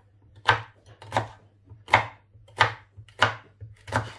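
Kitchen knife slicing through a bundle of long green peppers into rings on a wooden cutting board: six even chops, about one every three-quarters of a second.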